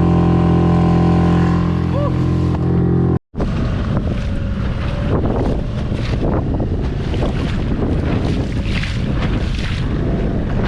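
Yamaha 6 hp outboard motor running at a steady speed. About three seconds in it cuts off abruptly, and wind buffeting the microphone and choppy water take over.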